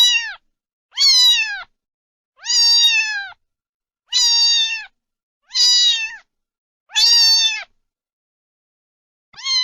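A cat meowing over and over, about one meow every second and a half. Each meow is high and drawn out and drops in pitch at the end, with a longer pause before the last one near the end.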